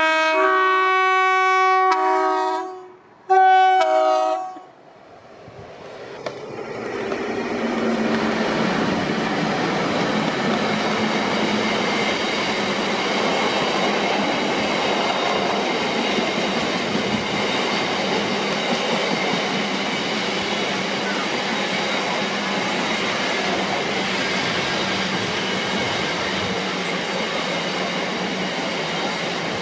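A train's two-tone horn sounds one long blast, changing note partway through, then a shorter blast. Then the train passes, running by steadily for the rest of the time.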